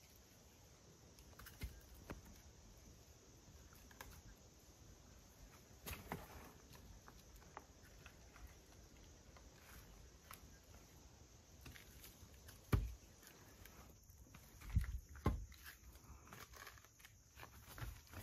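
Slow footsteps in sandals and a wooden walking stick knocking on stone steps. A few scattered knocks over a faint background hiss, the loudest about 13 seconds in and two more close together around 15 seconds.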